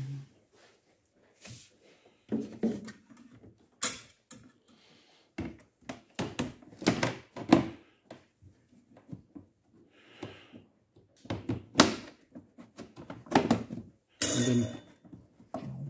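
Irregular plastic clicks, knocks and thunks as the Audi A4 B6's plastic water-box (scuttle) cover below the windscreen is pressed and clipped back into place by hand.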